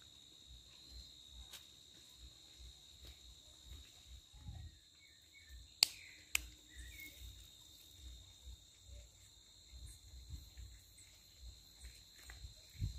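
Faint, steady high-pitched insect trill. Two sharp clicks about half a second apart come near the middle, over a low rumble on the microphone.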